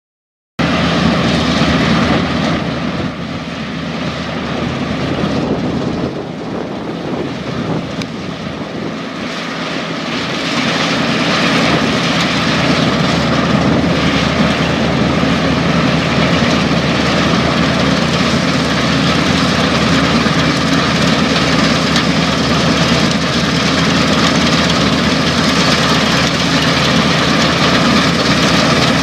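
Dronningborg D1250 combine harvester running while harvesting grain: a steady, loud drone of engine and threshing machinery that grows louder from about ten seconds in as the machine comes closer.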